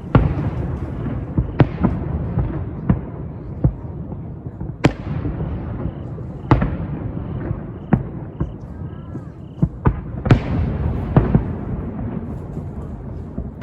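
Fireworks display: aerial shells bursting in a string of sharp booms, a second or so apart, over a continuous low rumble of echoing reports.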